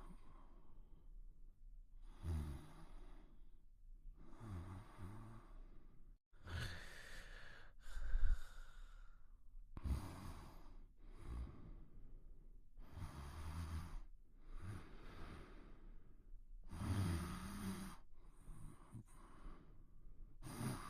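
Quiet snoring: soft, slow breaths in and out every two seconds or so, one breath about a third of the way in carrying a falling whistle.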